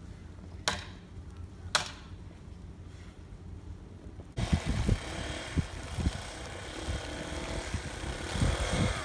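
Road traffic: a low steady rumble with two sharp clicks about a second apart. Then, from about four and a half seconds in, a sudden switch to a louder, even rush of noise with irregular low thuds.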